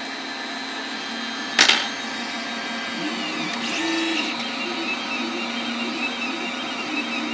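MakerGear M2 3D printer printing its first layer. Its stepper motors sing in shifting, stepping tones as the print head moves from about three seconds in, over a steady hum. There is one sharp click about a second and a half in.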